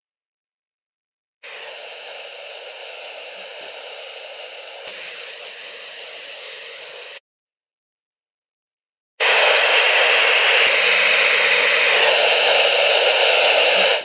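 Ultrasound inspection recordings made audible: two separate stretches of steady hiss, a quieter one and then a much louder one after a few seconds of silence. This is typical of the turbulent flow noise an ultrasound detector picks up from a leak, a steam trap or a valve.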